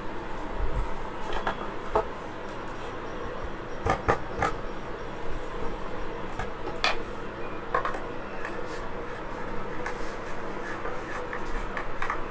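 Scattered small clicks and knocks of hard plastic and metal parts and tools being handled, a few sharper taps about 2, 4 and 7 seconds in, over a faint steady hum.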